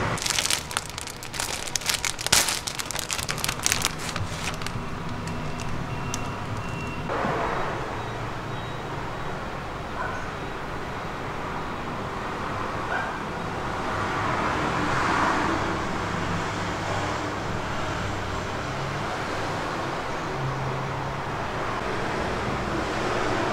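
Steady background noise like road traffic, with a quick flurry of sharp clicks and knocks over the first few seconds.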